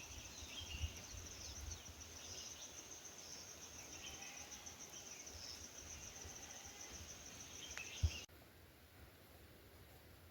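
Faint outdoor ambience of a steady, high insect trill like crickets, with scattered bird chirps. A single low thump about eight seconds in, after which the insect trill cuts off suddenly, leaving a quieter background.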